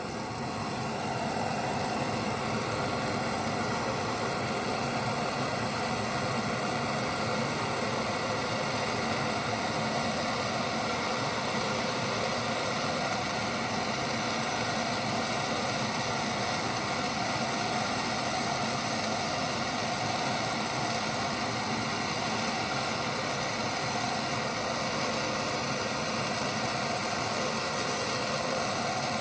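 Handheld gas torch burning with a steady hiss, its flame heating a small steel part toward cherry red before it is quenched in oil.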